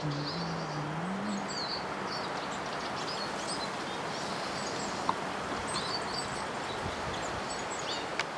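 Faint, high bird chirps and twitters scattered over a steady outdoor background hiss. A low hum rises in pitch about a second in, and a single sharp tap comes about five seconds in.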